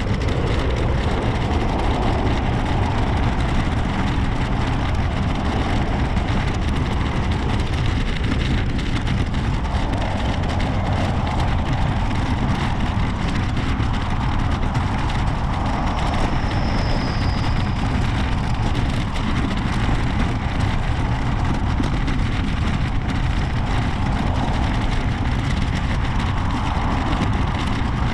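Steady rushing noise of riding a bicycle along a paved path: wind on the microphone and tyres rolling, heaviest in the low range and wavering a little in the middle.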